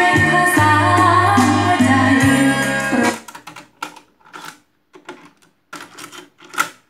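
Music with a woman singing plays from a Pioneer CT-W511R cassette deck and cuts off about three seconds in. A run of short plastic clicks and clunks follows as the deck's cassette doors are opened and a tape is pushed into the second deck.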